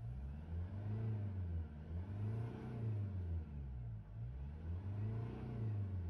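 Hyundai Grand Starex van's engine revved in park, the revs rising and falling several times, about every second and a half, heard from inside the cab.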